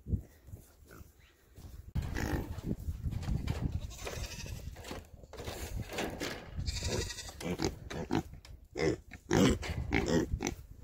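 Nigerian dwarf goats bleating several times, begging for feed.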